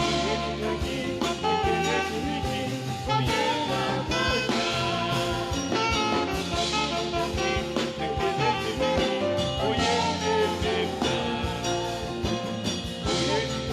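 Saxophone playing a worship melody with held, bending notes over a backing track with steady bass and regular drum strokes.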